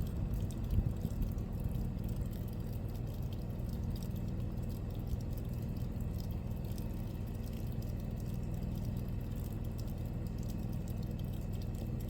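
Steady rain falling, with fine drop patter over a low, even rumble, and one brief knock under a second in.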